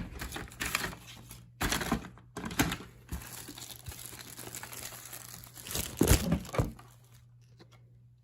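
Crinkling plastic and handling noises as a screen protector and its plastic packaging are handled, in irregular rustles with louder crackles about two and a half and six seconds in.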